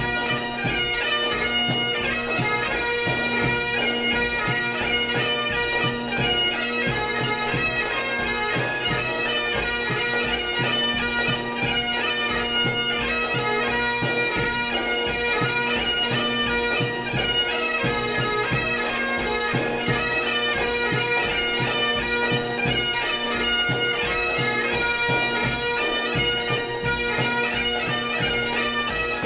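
Highland pipe band playing a march, strathspey and reel set: great Highland bagpipes with steady drones under the chanter melody, and drums keeping a regular beat.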